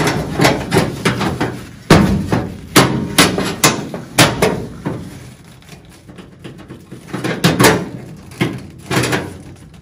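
Irregular sharp metallic knocks and clanks as pliers clamped on a freshly welded accelerator pedal hinge are wrenched against the sheet-steel floor pan of a 1962 Volkswagen Type 2, testing the welds, which hold. There is a lull about five to seven seconds in.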